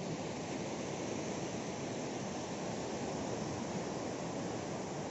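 Steady rushing roar of the Suru River's fast white-water current over rocky rapids.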